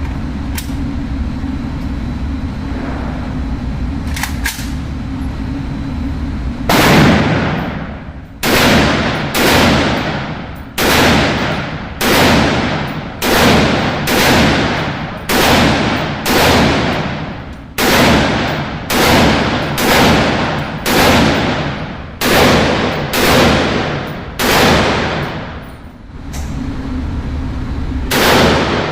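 Gunfire at a shooting range: about seventeen single shots in steady succession, roughly one a second, each ringing out and dying away before the next. A steady low rumble fills the stretches before and after the shooting.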